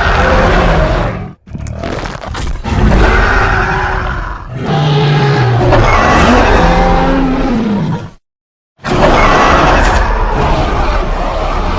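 Custom-made Indoraptor roar sound effects: a string of loud, low roars with pitch that bends and slides, separated by short breaks, with a full stop of about half a second about eight seconds in.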